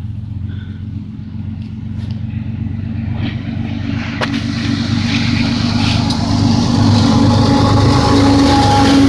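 Diesel locomotives of a BNSF empty coal train approaching and rolling onto a bridge overhead: a steady low engine drone that grows louder throughout. Wheel and rail noise builds from about halfway through.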